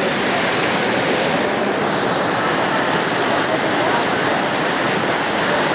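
Heavy rain pouring down, a loud, steady, dense hiss.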